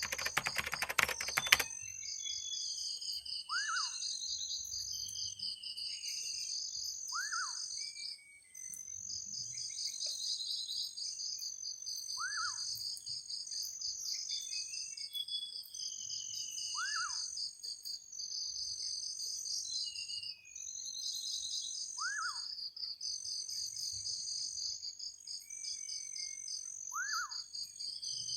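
Birds chirping over a steady high insect trill, with one lower short bird call repeating about every four to five seconds. It opens with a loud, rapid clatter of clicks that stops about a second and a half in. The ambience cuts out briefly twice.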